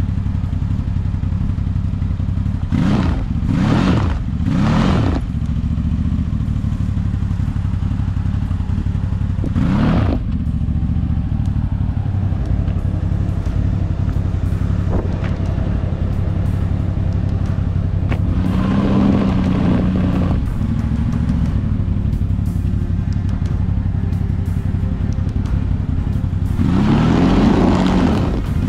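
4WD engine labouring in low range while trying to crawl out of a bog, its revs rising and falling in several surges over a steady run.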